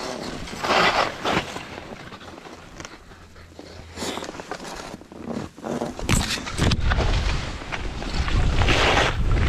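Skis sliding and scraping through soft powder snow in uneven swells. From about six seconds in, a heavy low rumble of wind on the microphone builds and stays loud.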